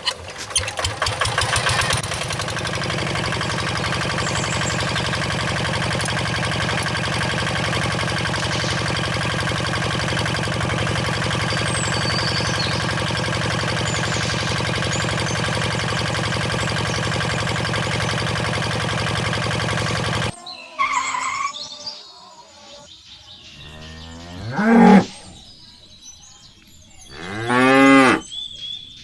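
Cattle mooing: a few long moos in the last third, the loudest about four and seven seconds after a steady drone that fills the first two-thirds and cuts off suddenly.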